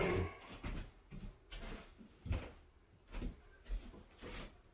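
Irregular knocks and clunks of small objects being handled and set down, roughly one or two a second, the sharpest right at the start.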